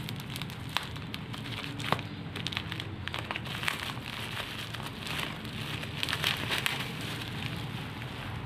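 Plastic mailer bag and bubble wrap crinkling and crackling as hands pull them open, busiest about six seconds in, over the steady hiss of rain.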